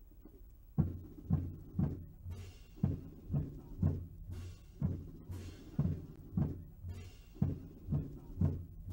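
Military band drums beating a steady slow cadence, deep heavy strokes about twice a second, starting about a second in.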